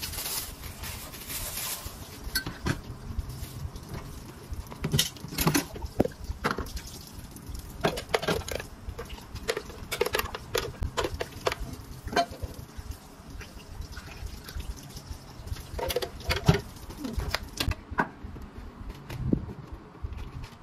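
Drink preparation at a cafe counter: plastic cups, a blender jar and a metal pitcher knocking and clinking as they are handled, with liquid being poured into a cup.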